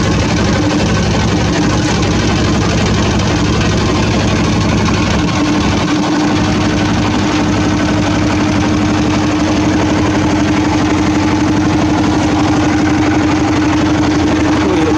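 A small wooden motorboat's engine running steadily under way, with a droning note that grows stronger about a third of the way in.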